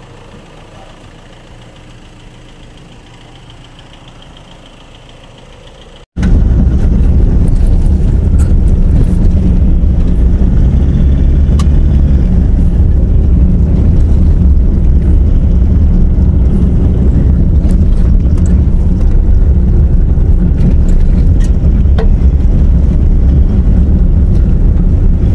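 Vehicle driving on a rough unpaved logging road. A moderate steady cabin hum is cut off abruptly about six seconds in, and a loud, heavy rumble follows, with scattered knocks and rattles from the bumps.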